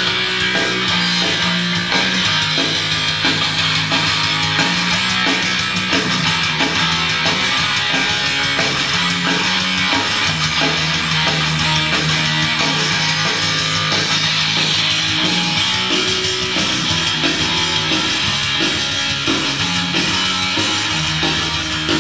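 Guitar music with strumming, playing back from a cassette on a Teac A-170 stereo cassette deck during a playback test.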